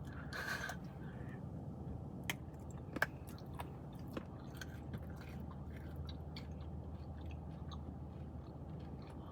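A person chewing food, quiet, with scattered short clicks and smacks of the mouth over a low steady hum.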